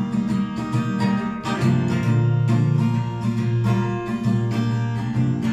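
Steel-string acoustic guitar with a capo, strummed in a steady rhythm: chords ringing in an instrumental passage, with no singing.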